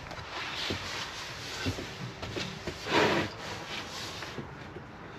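Light knocks and clicks of wooden seat panels being handled and positioned, with one brief scrape of wood rubbing about three seconds in.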